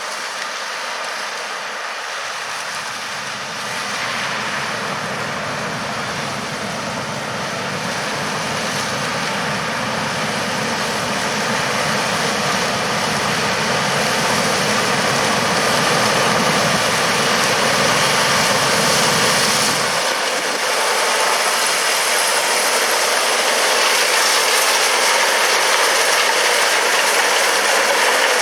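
John Deere S680 combine running steadily while harvesting corn, a dense mechanical clatter and engine noise that grows louder as the machine comes closer.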